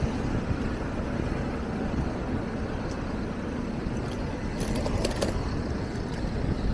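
Steady city street traffic and road noise heard from a moving bicycle, with a brief metallic rattle about five seconds in.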